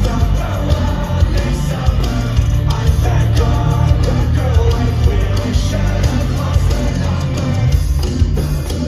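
Live rock band playing at full volume, electric guitar and drums over a heavy low end, heard from within the audience.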